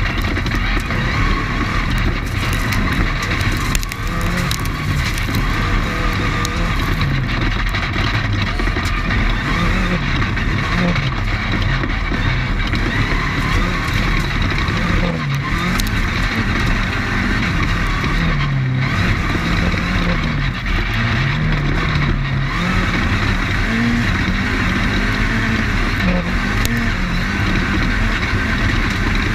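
Off-road desert race car's engine, heard from onboard at full pace, repeatedly revving up and dropping back every second or two. Under it runs a constant loud rumble and rattle of the car over rough dirt, with frequent knocks.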